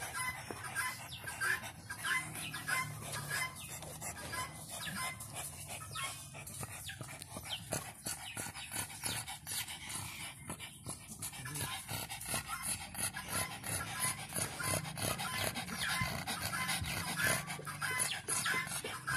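Pug puppy panting, a quick, breathy rhythm that runs on throughout.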